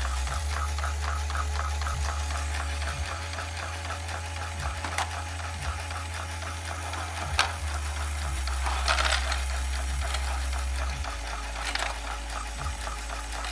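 A LEGO Technic pinsetter mechanism running on its single electric motor: a steady low motor hum under a fast, even clicking of plastic gears and linkages at about five clicks a second. A few sharper plastic clacks come through, and there is a short rattle about nine seconds in.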